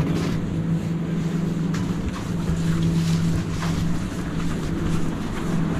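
Supermarket room tone: a steady low hum under a wash of background noise, with a few faint knocks.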